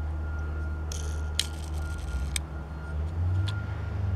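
Low, steady rumble of a vehicle engine that grows louder about three seconds in. Over it there is a faint, high-pitched intermittent beeping from somewhere unseen, and a few light clicks.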